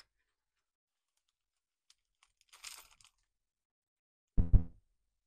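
Handling of small plastic action-figure parts: a faint rustle, then two dull thumps in quick succession on the wooden tabletop near the end.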